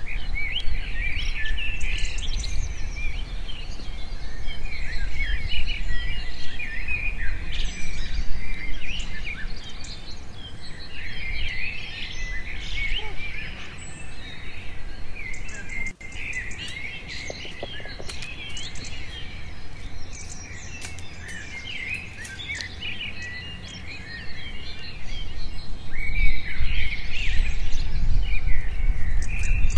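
Many birds chirping and calling continuously over a low rumble, which is strongest at the start and again near the end.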